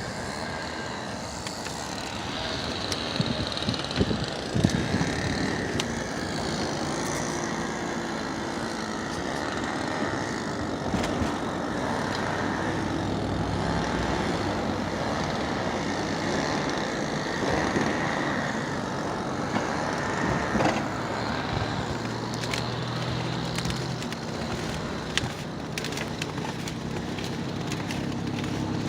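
Motor vehicle noise: a car or truck running on the road, with a steady rushing sound and scattered clicks.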